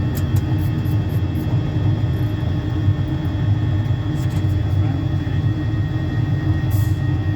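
Simulated Boeing 737-800 engine and cockpit noise of a climb after take-off, played through a full-motion flight simulator's sound system: a steady low rumble with faint steady tones above it.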